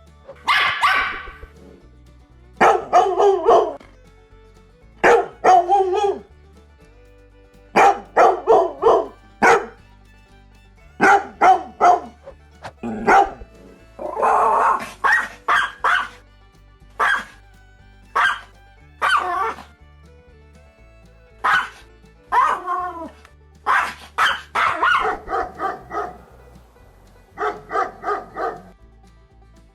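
A dog barking in short runs of a few barks, a run every second or two, over background music with a low bass line.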